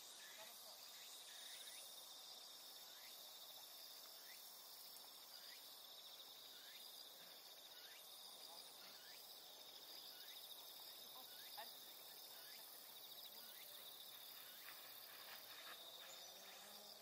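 Faint, steady high trilling of insects in the grass, with soft short chirps about once a second.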